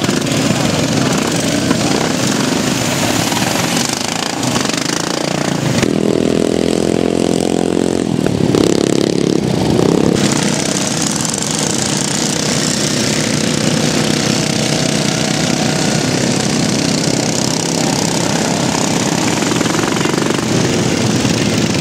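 Racing ride-on lawn mowers' small engines running loudly on the course, several at once. One engine's steady note comes through clearly for a couple of seconds about six seconds in.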